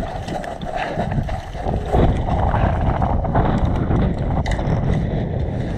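Wind rumbling on the microphone, heavier about two seconds in, with a few faint clicks mixed in.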